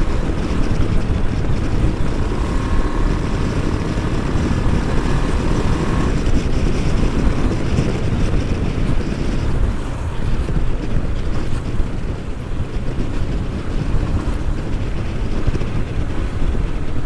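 Wind rushing over the microphone of a KTM Adventure motorcycle riding at about 70 km/h, with the engine and tyre noise running steadily beneath.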